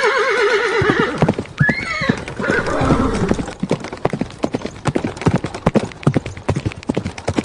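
A horse whinnying: a long quavering call at the start, then shorter gliding calls about two seconds in, followed by hooves clip-clopping in an uneven run of knocks.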